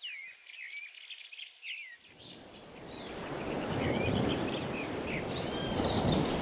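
Small birds chirping and twittering, with the wash of ocean surf fading in about two seconds in and swelling to a steady rush beneath them.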